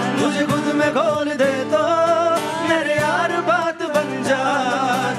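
A man singing a gliding, wavering melody over live music, with a hand-slapped cajón keeping the beat.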